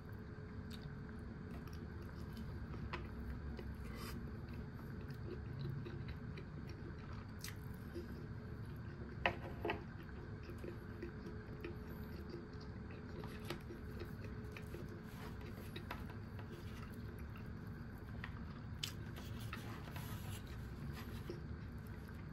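A person chewing breaded pork loin cutlet and curry rice, with scattered light clicks of chopsticks against the plate and two sharper clicks near the middle, over a steady low room hum.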